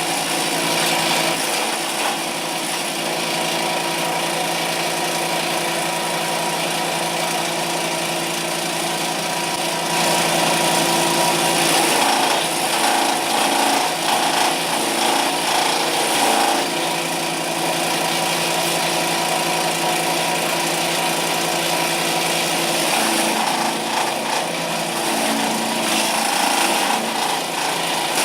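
Homemade wood chipper running with a steady machine hum and a continuous rough grinding noise of wood being chipped, which grows louder and rougher about halfway through.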